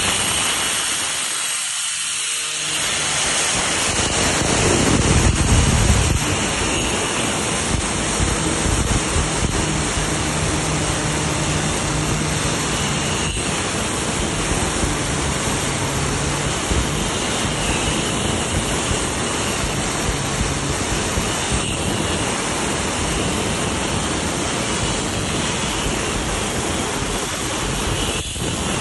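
Power saw with a turbo diamond blade cutting granite: a steady, loud grinding hiss with a faint high whine, briefly louder and deeper about five seconds in.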